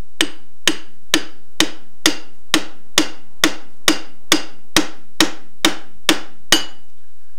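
Hammer tapping a pickle fork (ball joint separator) wedged under a tie rod end at the bell crank of a 1943 Willys MB jeep: sharp metal blows, about two a second, around fifteen in all, growing a little louder and stopping near the end, driving the tie rod end's taper out of the bell crank until it separates.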